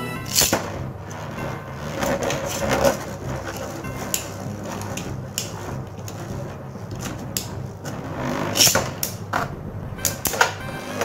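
Beyblade spinning tops launched by ripcord into a plastic stadium, spinning with a rough whirr and clacking sharply as they collide. The clacks come several in quick succession near the end.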